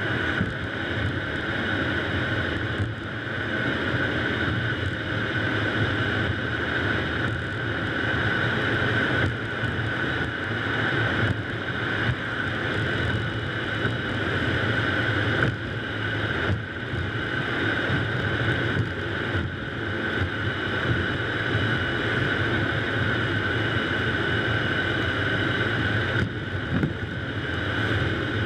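Steady road and tyre noise with wind rush from a car driving along a city street, with a few light bumps.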